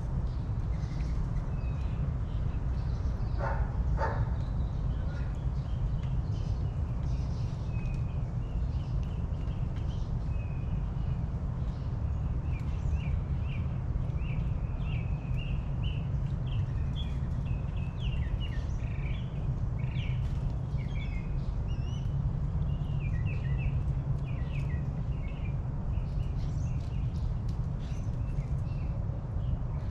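Small birds chirping repeatedly in short, high calls, busiest in the second half, with two lower calls about four seconds in, over a steady low rumble.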